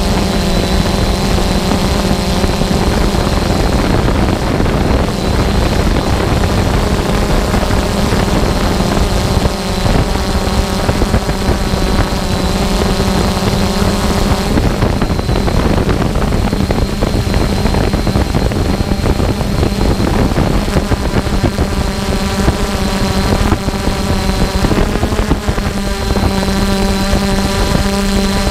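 3DR Solo quadcopter's electric motors and propellers heard from its onboard camera in flight: a steady buzzing hum with a thin high whine above it, over a constant rushing noise. The hum's overtones shift a little as the drone manoeuvres.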